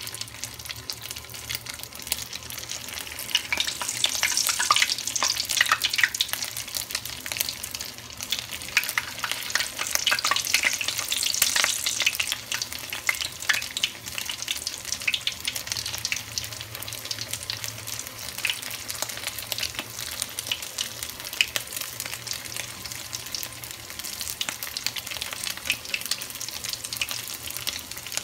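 Shrimp toast squares deep-frying in hot oil in a wok: a steady crackling sizzle. It flares louder about four seconds in and again about eleven seconds in, as more pieces go into the oil.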